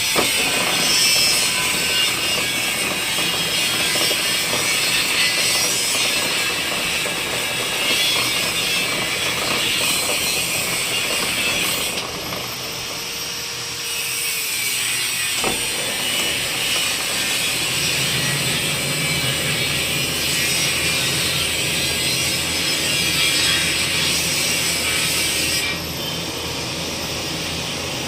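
Steady, rough mechanical noise from workshop machinery, mostly high and hissy, running on without a break.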